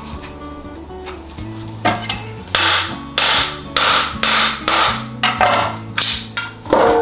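Repeated sharp knocks of a kitchen knife's blade striking a hard coconut shell, starting about two seconds in and coming roughly two a second. Background music with a steady bass line plays under them.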